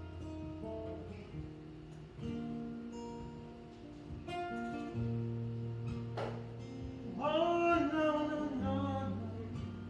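Acoustic guitar playing slow, held chords, with a man's voice singing over it from about seven seconds in.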